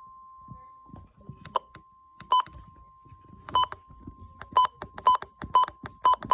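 Weather radio warning alarm tone, a faint steady whine near 1 kHz, with about eight short, sharp electronic beeps over it at uneven intervals from about a second and a half in.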